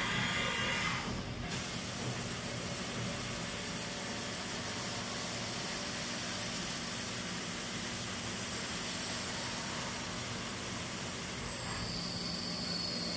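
Flood coolant spraying onto the tool and part in a Haas VF4 CNC vertical mill, a steady hiss, with the spindle running. About 12 s in, a steady high whine and a low hum join in as the drill cuts into the part.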